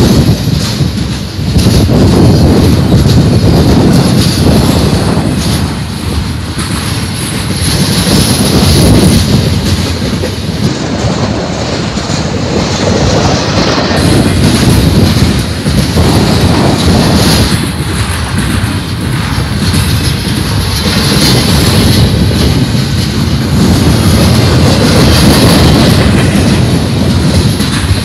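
Double-stack intermodal freight train of container well cars rolling past at close range, its steel wheels rumbling and clacking steadily on the rails. Gusts of wind buffet the microphone, so the low rumble swells and fades every few seconds.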